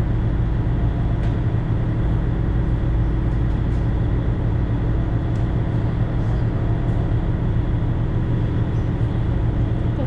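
Sightseeing boat's engine running steadily under way, a constant low drone with a low hum, heard from inside the cabin.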